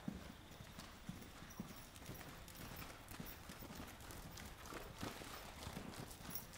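Faint, soft hoofbeats of two horses cantering loose on sand arena footing, their thuds overlapping irregularly.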